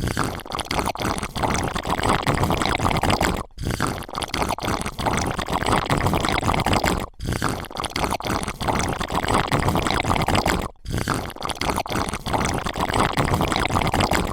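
Wet, crackly liquid sounds in four similar stretches of about three and a half seconds each, each separated by a brief silent gap.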